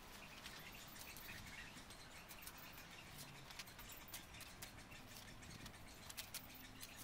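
Quiet garden background: scattered faint light clicks and a few soft bird chirps.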